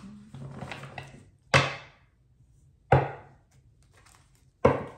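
Three sharp knocks of a deck of tarot cards on a wooden tabletop, about a second and a half apart, each dying away quickly.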